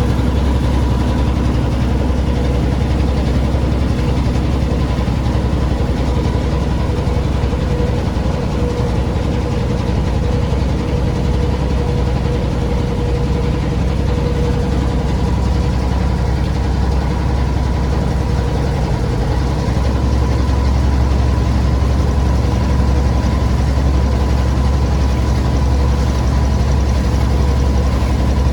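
An engine running steadily at a constant speed: a loud low drone with a steady higher whine on top.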